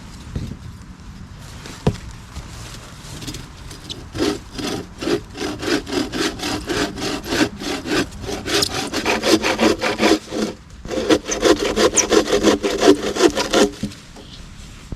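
Hand saw cutting through wood in quick, evenly repeated back-and-forth strokes, starting about four seconds in, breaking off briefly, then stopping near the end.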